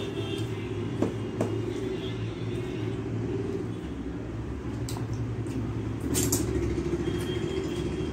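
Fingers mixing rice and curry on a stainless steel plate, with a few small clicks and scrapes against the metal, over a steady low rumble.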